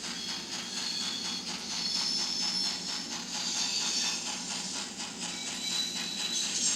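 LokSound digital sound decoder in an N scale Trix Bavarian S 3/6 steam locomotive model, playing steam locomotive sound: a steady hiss of steam. It comes through the model's tiny speaker, thin and without deep bass.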